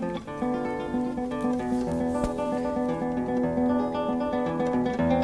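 Instrumental music on a plucked-string instrument, a prelude for lute, playing a steady stream of picked notes.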